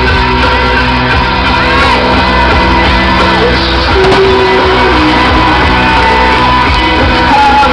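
Loud music with a huge crowd singing and shouting along.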